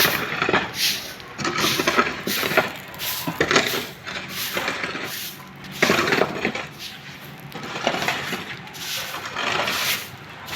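Irregular scraping and clinking of masons' hand tools against stone, tile or a metal mortar pan, in quick strokes that come in bunches.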